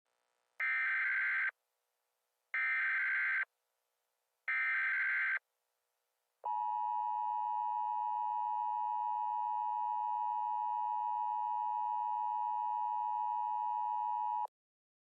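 Emergency Alert System tones. Three buzzy bursts of data tones, each about a second long with a second's gap between them (the SAME header), are followed by the steady two-tone attention signal, held for about eight seconds and then cut off abruptly.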